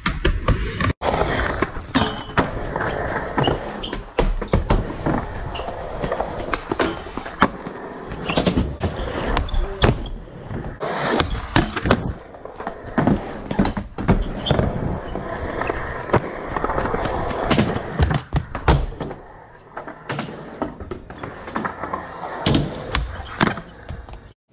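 Skateboard wheels rolling over concrete and ramp surfaces, with repeated sharp clacks and knocks of the board popping, landing and hitting ramp edges as tricks are done.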